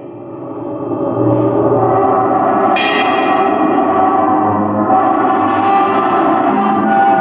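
Live improvised music for guitar and drums: a dense, sustained ringing drone that swells up over the first second or so and then holds steady, with a brighter upper layer coming in about three seconds in.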